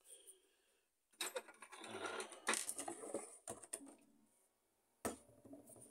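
Rapid clicking and rattling of small hard parts being handled for about two seconds, starting about a second in, then a single sharp knock near the end.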